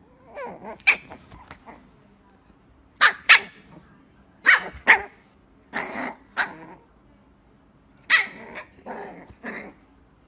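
A small puppy barking in short, sharp yaps, mostly in pairs, with a second or two of quiet between each burst.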